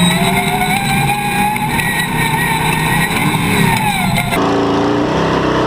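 Ultra 4 race truck's engine revving as it drives across sand, with a strong rush of wind noise. The revs fall about four seconds in, and just after that the sound changes abruptly to a steadier engine note.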